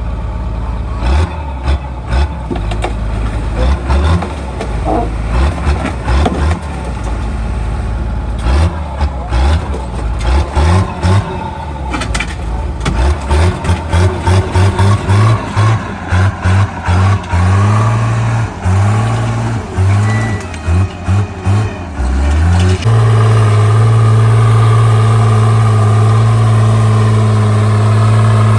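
Caterpillar D3C bulldozer's diesel engine working under changing load, its note surging and dropping, with many sharp metallic clanks and knocks. From about two-thirds of the way through, the engine settles into a steady, even note.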